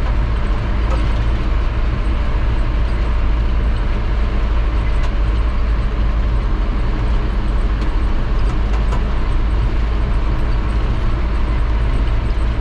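Steady engine and road rumble of a moving vehicle heard from inside the cab, heavy in the low end, with a few faint clicks.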